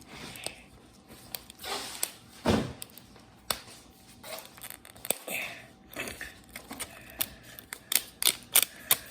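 Plastic wrapper of a Mini Brands capsule being crinkled and torn open by hand: irregular sharp crackles and clicks with a few short rustles, coming faster near the end.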